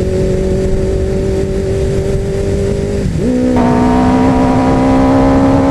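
2003 Kawasaki Z1000's inline-four running through Two Brothers M2 V.A.L.E carbon fiber slip-on mufflers while riding at a steady note. About three seconds in the pitch dips and settles lower, as with an upshift, then the exhaust grows louder and fuller under throttle.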